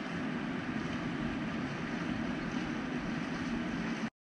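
Steady rushing outdoor background noise at the riverbank, which cuts off abruptly about four seconds in.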